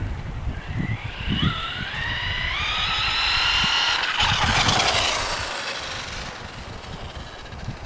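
FS Racing Victory X RC truck's 3000kv brushless electric motor whining and rising in pitch as the truck speeds up. It is loudest as it passes about four to five seconds in, then fades away.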